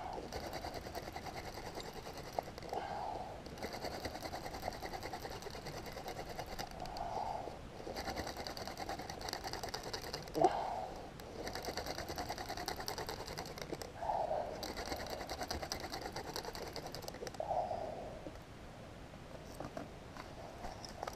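Hand-drill fire-making: a dry plant-stalk spindle twirled between the palms grinds in the notch of a wooden hearth board with a fast, rapid rasping, working to build an ember. It comes in runs of three to four seconds with brief breaks as the hands go back up the spindle, and stops about eighteen seconds in.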